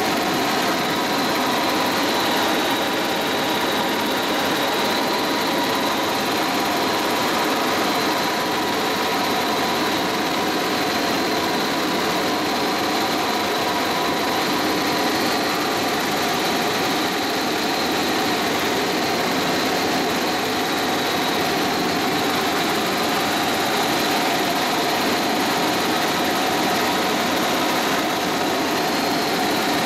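Helicopter in flight heard from inside the cabin: steady engine and rotor noise with a steady high whine over it.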